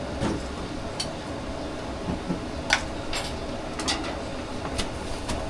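Steady background rumble of a busy breakfast shop, with a few sharp clicks and clinks of utensils and dishes scattered through it.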